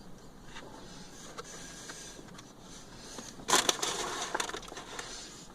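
Chewing a mouthful of chili cheese hot dog: faint wet mouth clicks, then a sudden louder crackly crunching about three and a half seconds in.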